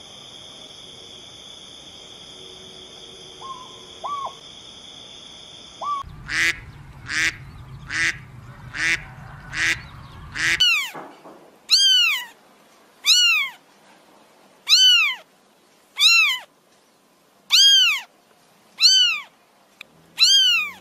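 Animal calls from several different recordings in turn. First a steady high ringing tone with a couple of faint short calls, then a quick run of about seven short calls. About halfway through comes a series of pitched calls that rise and fall, one every second and a half or so.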